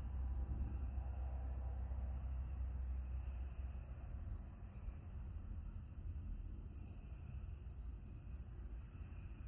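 Insects trilling, one steady high-pitched tone, over a low storm rumble that eases after about four seconds.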